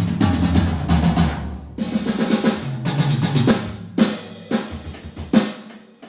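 Electronic drum kit being played: a fast roll of snare and tom hits with bass drum, then a few separate strikes with cymbal ringing. The hits thin out toward the end.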